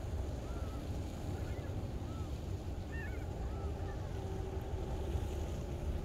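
Wind buffeting the microphone in a steady low rumble, with gulls calling faintly in the distance: a handful of short, arched calls over the first four seconds.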